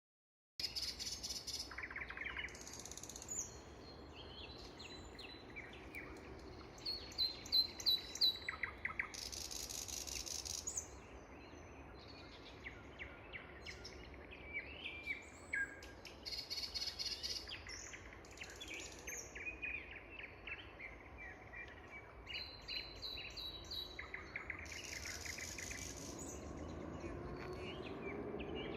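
Nightingale singing: phrases of rapid repeated notes, trills and clear whistles, each lasting a second or two, with short pauses between them.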